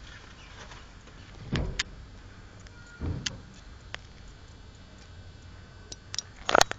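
Handling noise on a handheld camera's microphone over faint background noise: two low bumps with sharp clicks about a second and a half and three seconds in, then a quick run of loud clicks and knocks near the end.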